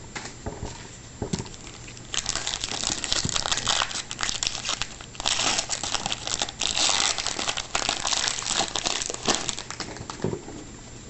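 Crinkling of a trading-card pack wrapper being handled and torn open, in uneven bursts from about two seconds in until near the end.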